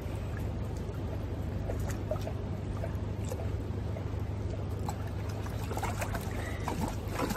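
Fast river current rushing steadily, with light dripping and rustling as a wet mesh keep net is handled at the water's edge.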